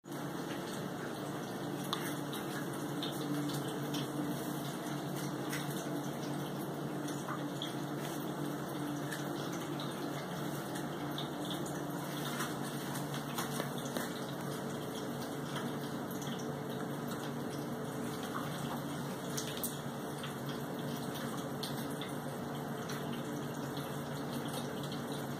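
A pet drinking fountain running: a steady trickle of water over the low hum of its small pump.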